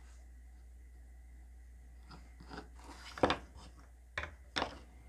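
A few short knocks and clatters, the loudest a little past the middle, as a small bamboo-chopstick cord reel and a plastic glue bottle are handled and set against a wooden work board.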